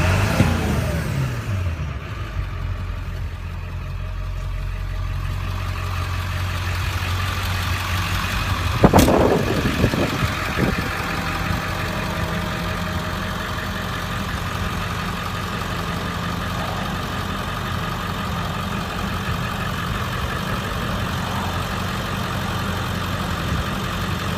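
Ford 7.3 L Powerstroke turbo-diesel V8 falling back from a rev to idle in the first couple of seconds, then idling steadily. A loud thump about nine seconds in, followed by a couple of lighter knocks.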